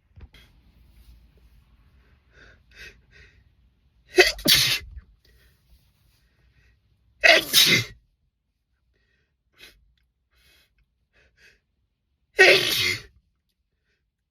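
A man sneezing loudly three times, a few seconds apart, the wet, spraying sneezes each coming out in a short burst of breath, with faint breaths before the first.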